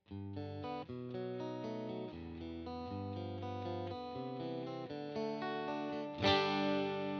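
Electric guitar with single-coil pickups played through a clean tone: a run of picked single notes and chord fragments, then a full chord strummed about six seconds in and left ringing.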